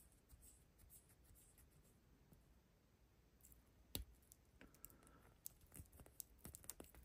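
Faint clicks from a Nove diver wristwatch being handled as its crown is turned to set the hands. One sharper click comes about four seconds in, and small clicks come closer together near the end.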